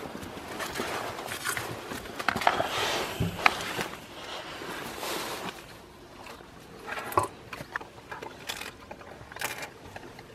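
Footsteps and rustling over dry straw as a metal bowl of dry kibble is set down, then a dog eating from it, with a few sharp crunches and clinks against the metal bowl in the second half.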